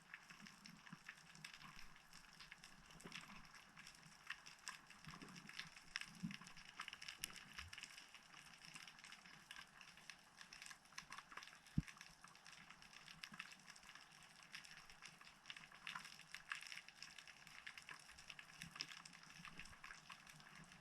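Faint underwater ambience: a dense, steady crackling and clicking of the sea heard through the camera's housing, with one sharper knock about twelve seconds in.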